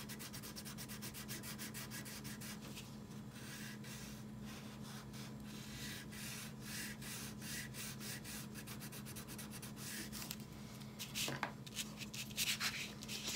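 Quick back-and-forth colouring strokes scratching on paper, several a second, stopping about ten seconds in; a few sharper taps and paper rustles follow near the end.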